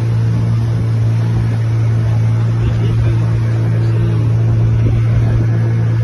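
Small wooden boat's motor running at a steady, unchanging pitch, a constant drone, as the boat moves along.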